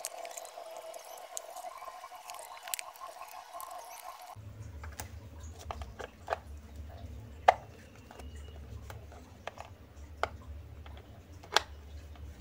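Scattered clicks and taps from cables and plugs being handled and RCA connectors pushed into a small cardboard-cased amplifier. The loudest click comes about halfway through. A steady low hum sits under the clicks from about four seconds in.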